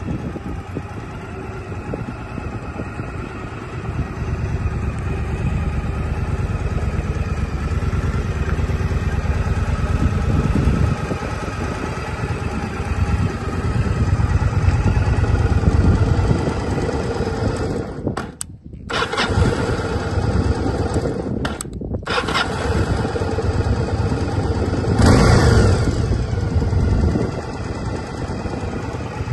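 Yamaha XVS 1100 Drag Star's air-cooled V-twin engine running at a standstill, swelling louder a few times, most of all about 25 seconds in. The sound cuts out for a split second twice past the middle.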